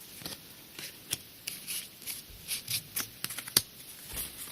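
Pokémon trading cards being handled and flicked through: a string of irregular light clicks and brief slides of card against card.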